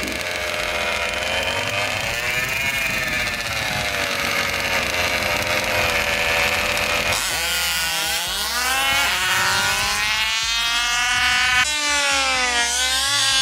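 Small two-stroke gasoline engines of 1/5-scale RC cars running: first idling at the line with a slowly wavering pitch, then, after about seven seconds, revving higher with the pitch climbing and falling as the cars race.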